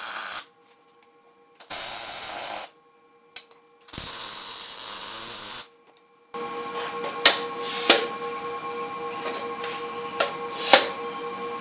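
MIG welder tack-welding 1/8-inch steel plate: three short bursts of crackling arc, then a longer crackling run of about five seconds with a few sharp pops. A faint steady hum continues between the bursts.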